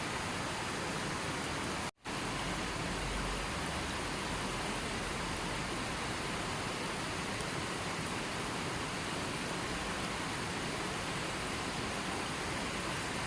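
Steady, even water noise, such as rain or falling water, that cuts out for an instant about two seconds in and resumes unchanged.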